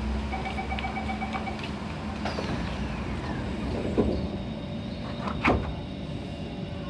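Sliding doors of an SMRT C151 train closing: a rapid two-pitch warning beeping for about a second, then two sharp knocks as the doors shut, about four and five and a half seconds in. A steady low hum from the stopped train runs underneath.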